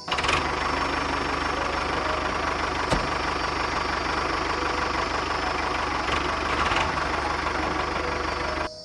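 Tractor engine idling with a steady, even knock, starting and stopping abruptly. A single sharp click about three seconds in.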